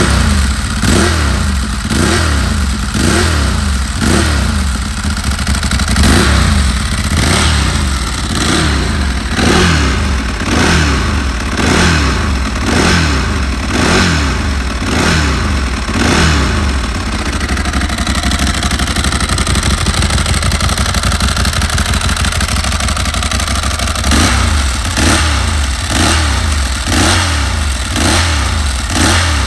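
Ducati 1098S Tricolore's L-twin engine through a Termignoni carbon exhaust, blipped again and again from idle at about one short rev a second. It settles to a steady idle for several seconds past the middle, then is blipped again in the last few seconds.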